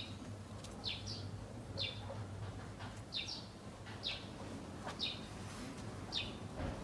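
A bird calling over and over: a short, high, falling chirp repeated about once a second, sometimes in quick pairs.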